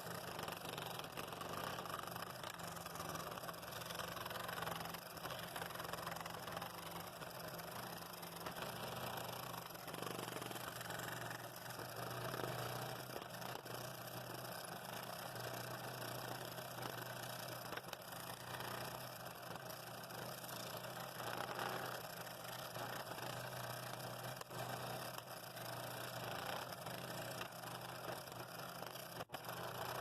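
Scroll saw running, its blade cutting through a stack of two quarter-inch wood blanks: a steady motor hum under a rasping cutting noise that rises and falls as the workpiece is fed.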